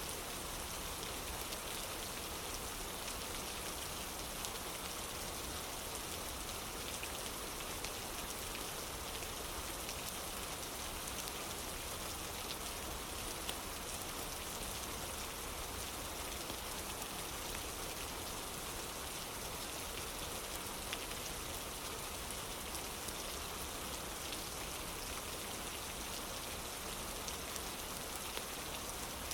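Steady rain falling on a wooden porch, an even hiss with a few faint clicks scattered through it.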